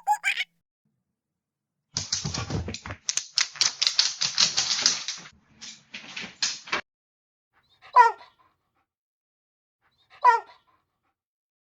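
Dog sounds: about five seconds of rapid, noisy clicking strokes, then two short whimpering cries that fall in pitch, a couple of seconds apart.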